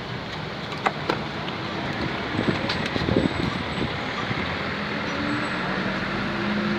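Steady street traffic noise, with two sharp clicks about a second in and a vehicle's engine hum coming in over it after about five seconds.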